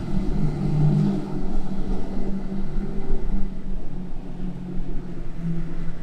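Outboard motors on a center-console boat running at speed, a steady drone that drops slightly in pitch near the end.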